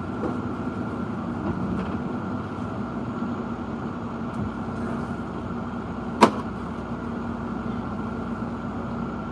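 Steady hum of a vehicle idling while stopped, with one sharp click a little past six seconds in.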